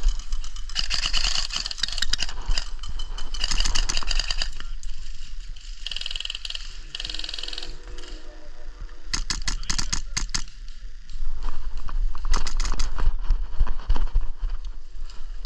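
Airsoft gunfire: quick trains of sharp clicking shots about nine and twelve seconds in, amid clatter and rustle of gear being handled.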